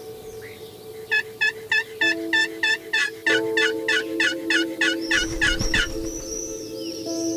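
Turkey yelping: a long run of about twenty rising-and-falling notes, four to five a second, starting about a second in and stopping about a second before the end. A soft steady music pad sits underneath, and a small bird chirps high at the start and near the end.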